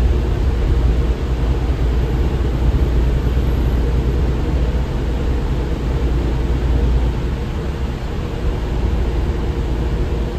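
MAN Lion's Intercity LE 13 bus under way, heard inside the cabin from the rear seats: a steady, deep engine drone mixed with road noise.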